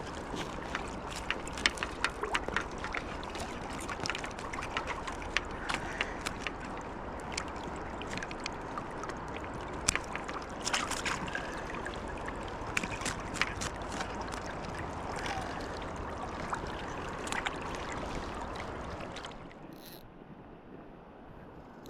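River water rushing and splashing close by, with many small sharp splashes and clicks on top. The sound drops to a quieter level near the end.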